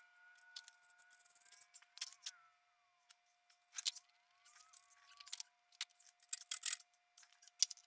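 Faint, scattered small metallic clicks and taps from hands handling parts at a mini bike's headlight and handlebars.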